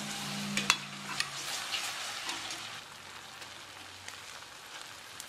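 Chopped shallot, garlic and lemongrass with fish sauce and tomato ketchup sizzling in a stainless steel frying pan, a metal ladle stirring and clicking against the pan in the first second or two. The sizzle drops lower about three seconds in.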